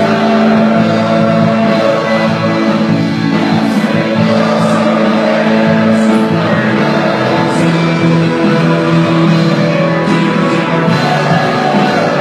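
Live worship band music with sustained held chords and singing.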